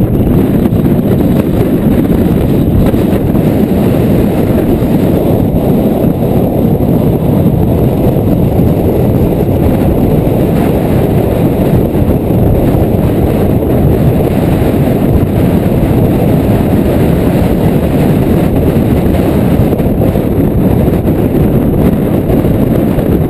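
Strong wind buffeting the microphone: a loud, steady low rumble with no letup.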